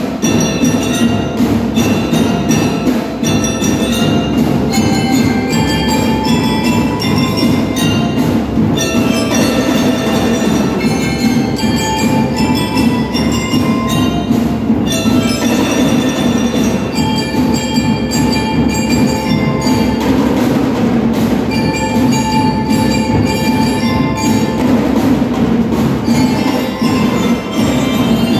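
Drum and lyre band playing: bell lyres ring out a melody over a dense, steady beat of marching drums.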